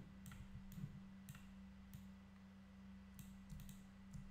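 Computer mouse clicking faintly, about half a dozen scattered clicks, over a low steady hum.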